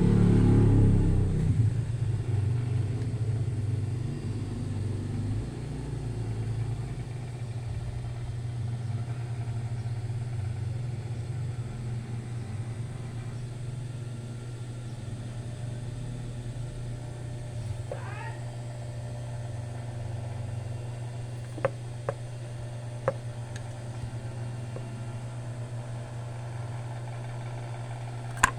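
Union Special 56300 industrial sewing machine with its motor running, a steady low hum, louder for the first second or so, with a few sharp clicks later on.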